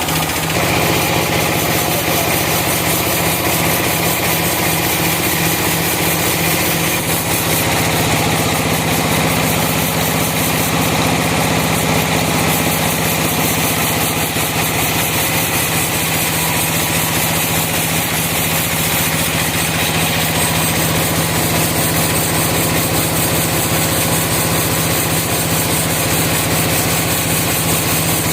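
A sawmill's engine running steadily with a constant hum.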